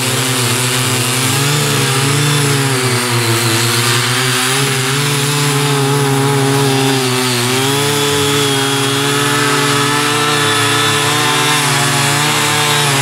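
Small petrol engines of Ching Yee CY50 mini garden tillers running steadily at working speed as their rotary tines dig into the soil. The engine note wavers up and down as the load changes.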